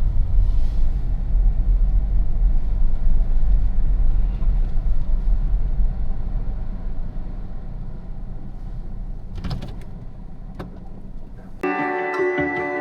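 Car driving along a road: a steady low road and engine rumble that slowly fades away, with a couple of faint knocks. Plucked-string music starts suddenly near the end.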